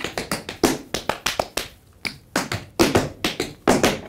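Tap shoes striking a wooden stage floor in quick clusters of sharp taps, a soft-shoe tap step danced without music, with a brief pause a little before halfway.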